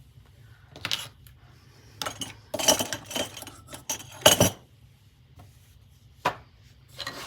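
Small hard objects and tools clinking and clattering as they are picked up and set down on a work table, in several separate bursts with quiet between.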